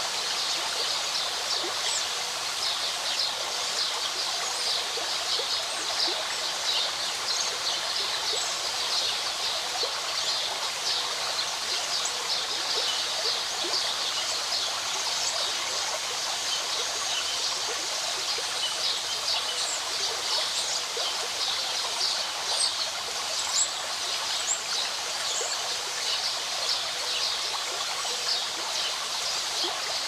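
Shallow stream running over a pebble bed: a steady rush of water dense with small, bright splashes.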